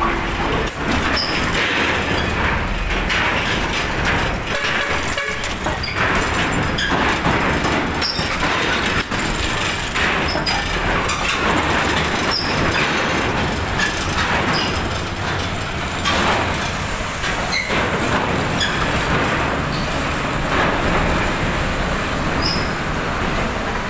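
Coach bus engine running as the bus rolls slowly onto a ferry's steel loading ramp, with a steady rumble of vehicle noise and scattered light clanks.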